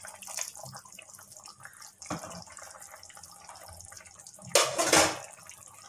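Hot water being poured into boneless mutton cooking in an iron kadai, the liquid splashing and bubbling, with a louder burst of noise about four and a half seconds in.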